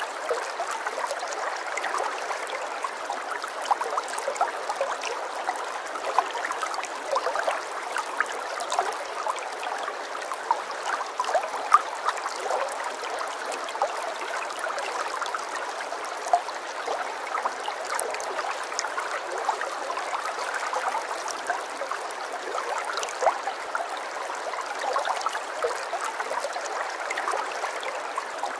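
Steady running water, like a small stream trickling, full of little splashes and with no low rumble.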